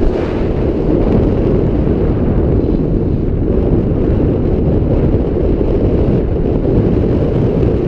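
Steady, loud wind rumble on the microphone from the airflow of a tandem paraglider in flight, strongest in the low range, with no engine or other distinct sound.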